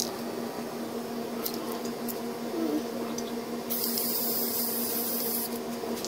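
Aerosol spray paint can sprayed in one burst of hiss lasting just under two seconds, starting a little past the middle and cutting off sharply, over a steady low hum.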